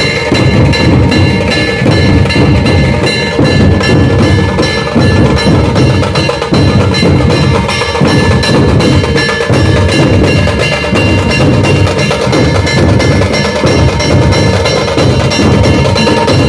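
A Maharashtrian dhol troupe playing many large barrel dhols together in a fast, dense, unbroken rhythm, with a steady metallic ringing over the drumming.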